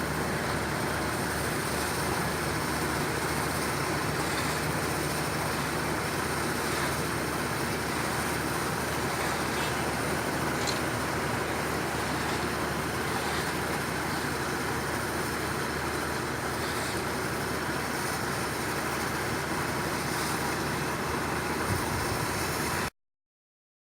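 Steady running noise of heavy road-paving equipment engines, with a low steady hum and no distinct events. It cuts off abruptly near the end.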